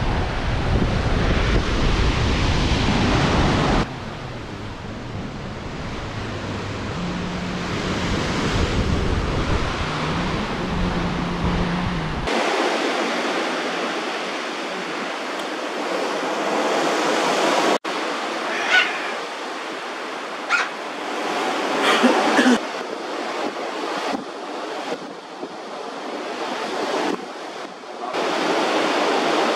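Wind blowing across the microphone over the rush of sea water, a steady roar of noise with no voices. The sound changes abruptly several times, at about 4, 12 and 18 seconds in, and again near the end.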